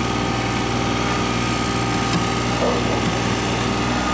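A small engine running steadily at constant speed, an even hum with a steady higher whine.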